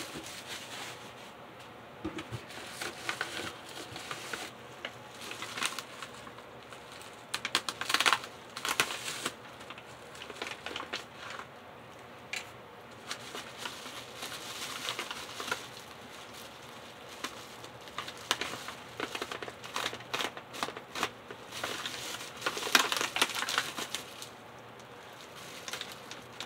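Plastic bubble wrap crinkling and crackling in irregular bursts as it is handled and cut open with a hobby knife.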